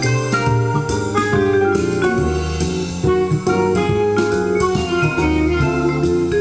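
Arranger keyboard, a Roland E-A7, playing its built-in demo song through its own speakers: a full accompaniment arrangement of keyboard and organ-like voices over bass, with a steady beat.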